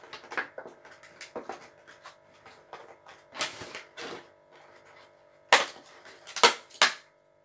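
Clear plastic packaging crinkling and rustling as it is handled and pulled off a pair of headphones, in a run of short crackles with a few sharper, louder ones over the last two seconds.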